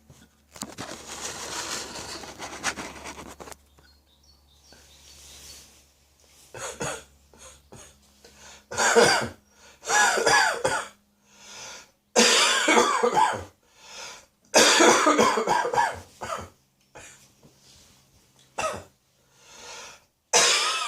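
A person with a spring cold coughing in repeated bouts, a cough sitting deep in the throat. It opens with a few seconds of noisy breathing, and the loud coughing bouts come from about a third of the way in.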